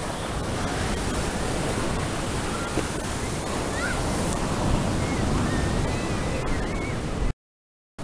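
Ocean surf breaking and washing in: a steady rush of noise. The sound cuts out suddenly about seven seconds in.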